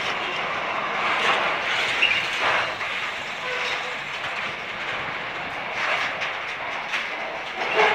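Container freight train rolling past close by: the steady rattle and rumble of wagon wheels on the rails, swelling and easing every second or two as the wagons go by.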